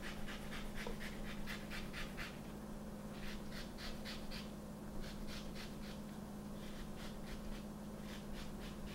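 Lemon rind being grated on a fine rasp zester: quick, light scraping strokes, about four a second, in several short runs with pauses between.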